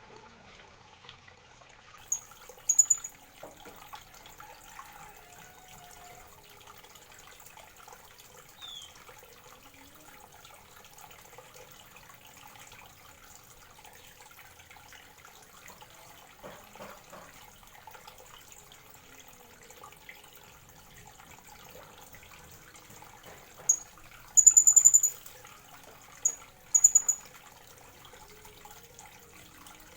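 Very high, thin, shrill bird calls, typical of a blue-crowned hanging parrot: two short calls about three seconds in, then a burst of several near the end, one held for nearly a second. A faint, steady hiss lies underneath.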